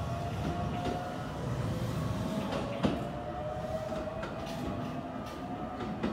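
Red Keikyu electric commuter train pulling out of the station and moving away, its motors giving a steady tone over a low rumble, with wheel clacks over the rail joints, the sharpest about three seconds in.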